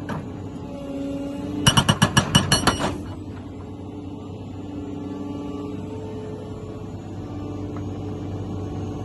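Montabert hydraulic breaker firing a short burst of rapid blows, about nine a second for just over a second, a second and a half in. Under it a machine engine runs steadily throughout.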